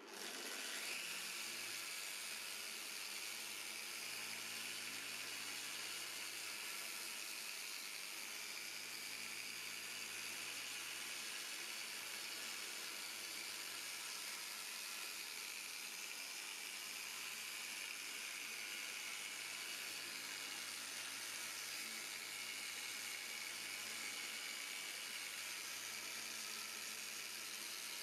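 Small handheld orbital sander-polisher switched on and running steadily with its pad pressed against a car's plastic headlight lens, giving a steady whir and hiss of the pad working the lens surface.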